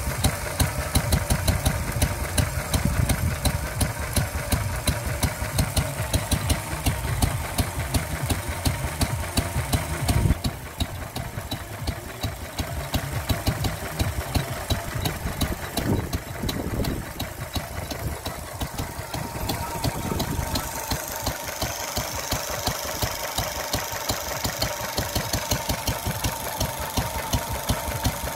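Lister D single-cylinder, hopper-cooled stationary engine of a sheep shearing set running steadily at idle with an even, rapid firing beat. Its low thud grows lighter about ten seconds in.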